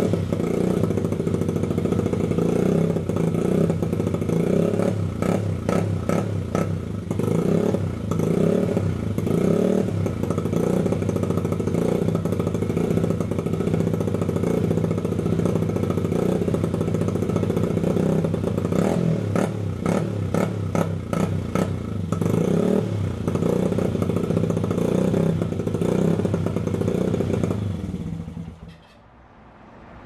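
Honda XR100 motorcycle's single-cylinder four-stroke engine running on a freshly cleaned carburettor and new spark plug, the revs rising and falling a little as the throttle is worked. It cuts off about a second and a half before the end.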